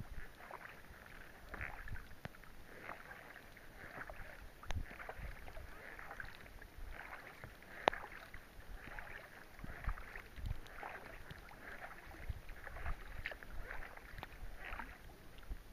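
Kayak paddle strokes: repeated water swishes and drips, one or two a second, over faint rain on the lake. A sharp knock about eight seconds in is the loudest sound, with a smaller one a few seconds before.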